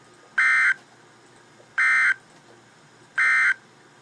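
Emergency Alert System digital data bursts: three short, high-pitched, buzzy tone bursts about a second and a half apart. This is the end-of-message (EOM) code that closes the alert.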